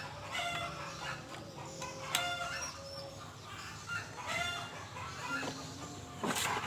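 Chickens clucking, with a rooster crowing, in many short pitched calls.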